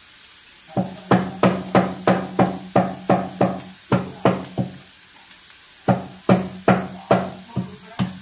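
Wooden rolling pin striking a wooden chakla (rolling board) to crack cardamom pods and free the seeds: even knocks about three a second, each with a short woody ring, stopping briefly around five seconds in and then starting again.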